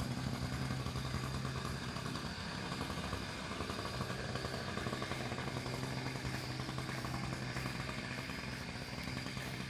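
An engine idling steadily with a low hum, which fades for a second or two about two seconds in and then comes back.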